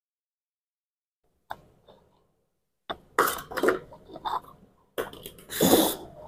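A man's short breathy, throaty vocal noises, not words, in two bouts starting about three and five seconds in, after near silence and a single click.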